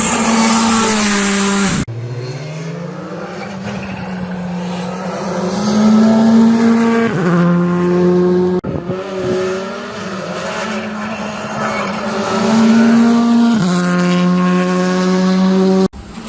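Rally car engines at full throttle, in several short clips cut together. In each clip the engine note climbs as the car accelerates, then steps down in pitch at a gear change, about 7 s and 13.5 s in.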